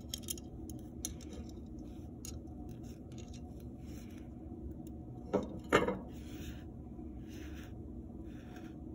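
Quiet scratching and rubbing of yarn and a plastic yarn needle being worked through a small hole in a hardened clay loom frame, with two short louder sounds about halfway through.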